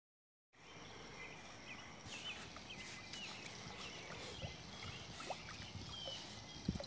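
Faint water lapping and splashing from a pug dog paddling through a swimming pool, with short high chirps in the background and a low thump near the end.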